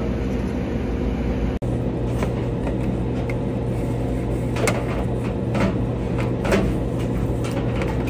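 A steady low machine hum, with light clicks and scraping from about halfway through as plastic water-line tubing is pushed along the floor under a stainless-steel counter.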